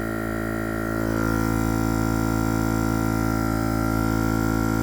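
Small 12-volt air compressor, wired directly to the car battery, running with a steady, even hum as it inflates a freshly plugged tire.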